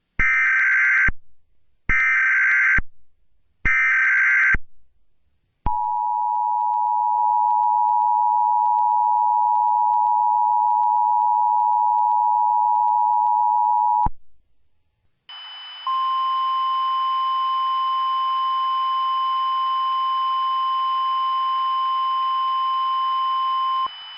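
Emergency Alert System tones: three short bursts of screeching SAME header data, then the steady two-tone EAS attention signal for about eight seconds. After a brief gap comes a single steady alert tone over radio hiss for about eight seconds.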